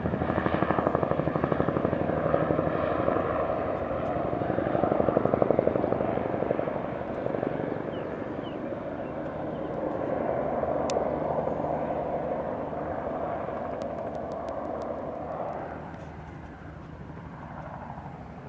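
Large helicopter running on the ground, its main rotor beating fast and steady. The beat is strongest at first, eases in the second half and drops away near the end.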